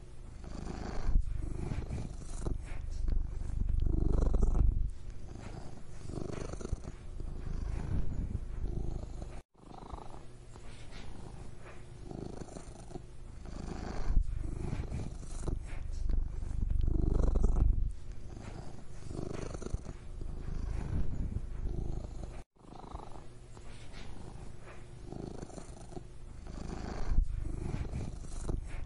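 A domestic cat purring: a low, steady rumble that swells and eases in slow cycles every few seconds, with each breath. It cuts out for an instant twice, about ten and twenty-two seconds in.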